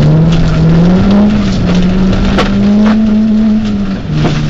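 Peugeot 206 rally car's engine heard from inside the cabin, pulling hard with its pitch climbing and then holding steady, then dropping suddenly near the end as the driver changes up a gear. A few short, sharp knocks from the car running over the rough dirt track.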